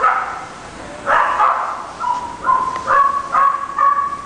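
A dog barking repeatedly with short, pitched barks: two barks in the first half, then a quicker run of about two or three a second.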